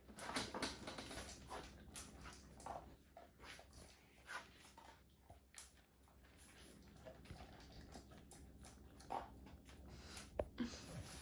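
Two basset hounds eating dry kibble and chicken from metal bowls on a tile floor: faint, irregular crunching and clicks of teeth and bowls.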